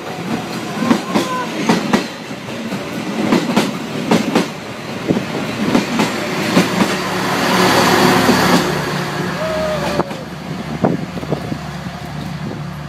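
Passenger train carriages passing within arm's reach, their wheels clattering over the rail joints, with a rushing swell about eight seconds in. A short squeal comes near ten seconds, then the sound settles to a steadier, quieter rumble as the train moves away.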